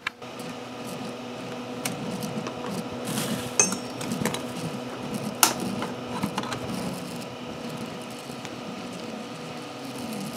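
Steady mechanical hum with a few sharp clicks and light knocks as the glass print bed of a 101Hero delta 3D printer is handled and lifted out with the print on it.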